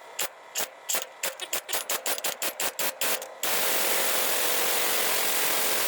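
A run of sharp clicks at a quickening rhythm, about four to six a second, then a loud, steady hiss starting about three and a half seconds in.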